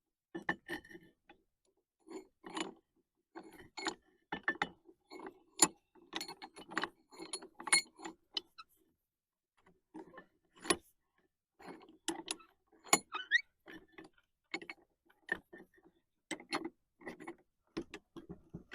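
Irregular metallic clicks, clinks and knocks of the Stowell 'Hanson' cast-iron combination vise being set up as a pipe vise, with a brief rising squeak about two-thirds of the way through.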